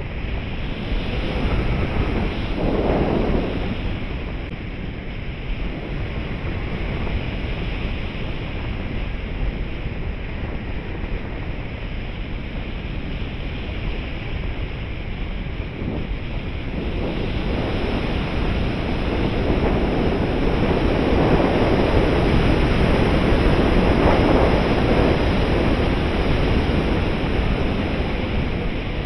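Wind rushing over the onboard camera of a 3.6 m RC glider in flight: a steady hiss with no motor heard. It swells about three seconds in and again, more broadly, through the second half.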